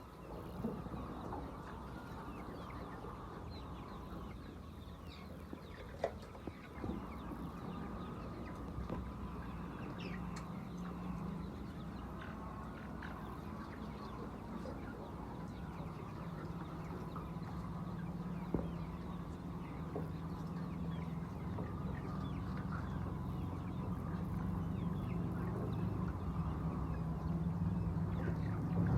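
A flock of laying hens clucking, many short scattered calls, over a steady low hum that grows louder toward the end.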